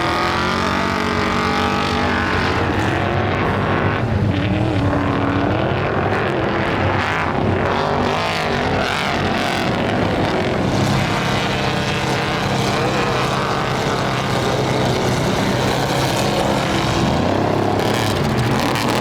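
Trophy truck race engines running hard, their pitch rising and falling with the throttle.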